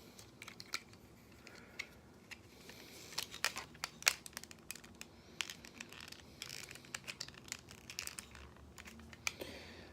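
Plastic parts of a transforming action figure clicking and rattling as it is handled, a scatter of small sharp clicks, busiest about three to four seconds in, as a piece is pushed to latch in place.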